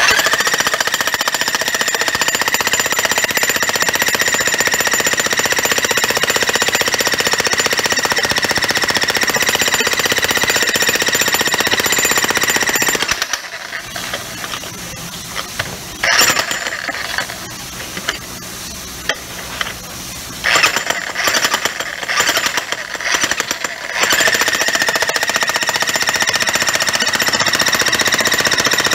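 Harbor Freight Hercules 15-amp electric breaker hammer (jack hammer) hammering, with a steady high whine over the rapid blows. It runs continuously for about thirteen seconds, stops, fires in a few short bursts, then runs steadily again for the last five seconds.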